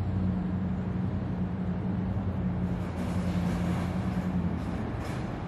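Outdoor traffic noise with a vehicle engine running nearby, a steady low hum that fades out about four and a half seconds in.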